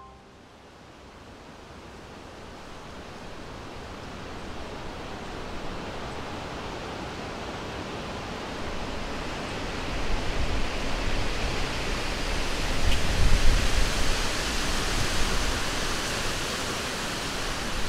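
A rushing noise that swells gradually, with a deep rumble underneath that grows loudest past the middle, strongest around thirteen seconds in.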